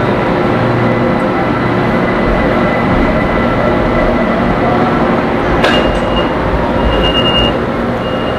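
Metro train running, a steady rumble with a faint motor whine. A sharp click comes a little past halfway, followed by a high tone that sounds three times near the end.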